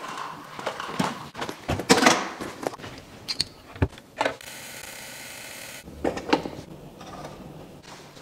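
Scattered clicks and knocks, then an ultrasonic glasses cleaner running with a steady electric buzz for about a second and a half before cutting off suddenly, followed by a few more clicks.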